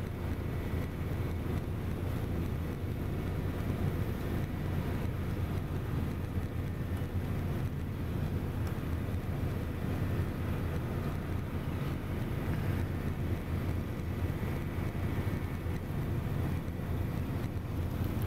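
A small cargo ship's engines run as a steady low rumble while the ship moves slowly in to dock.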